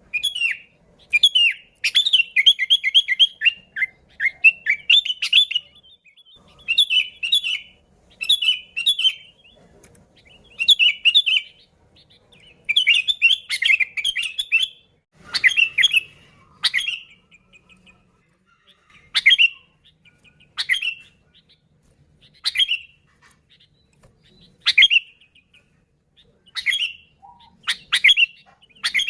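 Sooty-headed bulbul (kutilang) singing: busy runs of bubbly chirping phrases through the first half, thinning after about 17 seconds into single sharp, downward-sliding calls every second or two.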